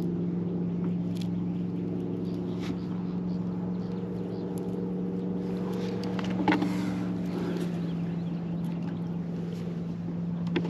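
A boat motor running with a steady hum, with a few light clicks and a sharper knock about six and a half seconds in.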